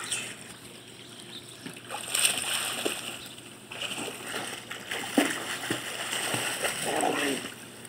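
Splashing water from a child swimming and kicking in a pool, irregular splashes that pick up about two seconds in.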